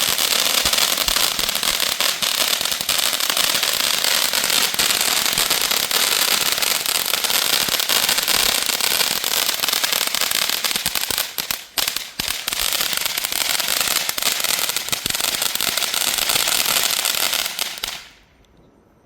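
Small consumer firework fountain burning, a steady hissing spray full of crackles. It falters briefly about two-thirds of the way through, then cuts off suddenly near the end as it burns out.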